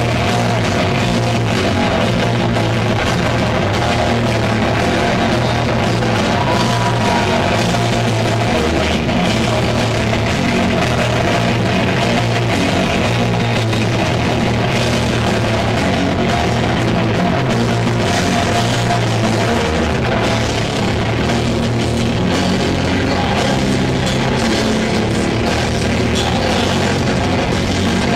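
Heavy metal band playing live: a Les Paul-style electric guitar riffing loudly over bass and a drum kit, steady and unbroken.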